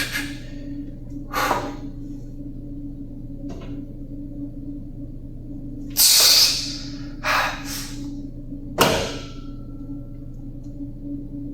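A weightlifter's sharp, noisy exhales while pressing reps on an incline barbell bench press, six of them at uneven gaps, the loudest about six seconds in. A steady low machine hum runs underneath.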